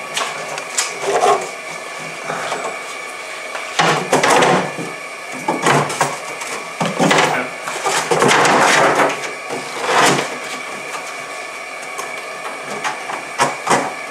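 Hard plastic frunk tub and trim panel being handled and pushed into place: irregular knocks, rattles and scraping, with a quick run of sharp clicks near the end.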